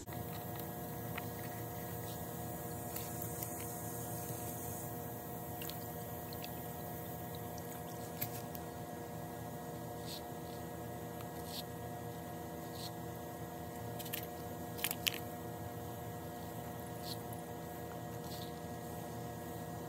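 A steady hum made of several held tones, with a few light clicks, the loudest pair about three quarters of the way through.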